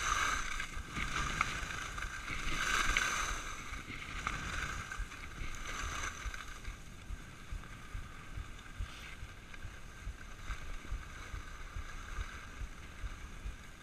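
Skis sliding and scraping over packed snow, with wind rushing on the microphone. The hiss swells three times in the first six seconds, then settles into a steadier, slightly quieter rush.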